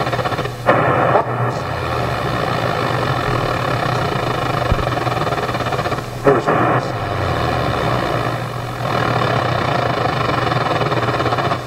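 Shortwave output of a Koma Elektronik Field Kit's CV-controlled radio, a steady hissing, buzzing drone whose level follows an envelope follower driven by an original Korg Monotron. Brief louder swells with a gliding tone come about a second in and again about six seconds in.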